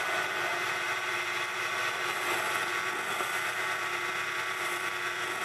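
Small metal lathe running steadily with a constant motor-and-drive whine while a carbide turning tool faces the end of a stainless steel threaded rod.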